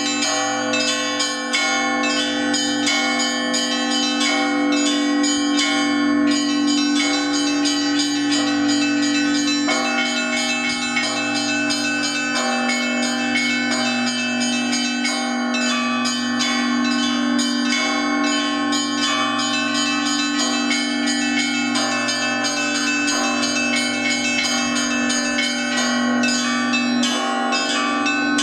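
Russian church bells rung by hand from the ropes of their clappers in a fast, continuous peal: rapid strikes of the smaller bells over the sustained ringing of the larger bells.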